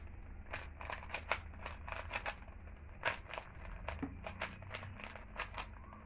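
Stickerless 3x3 puzzle cube being turned quickly by hand: a dense, irregular run of plastic clicks as the layers snap round. The clicks stop shortly before the end.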